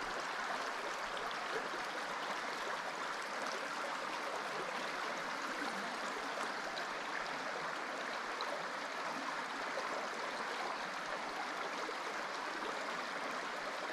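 Small mountain stream flowing steadily over rocks, a constant rush of water.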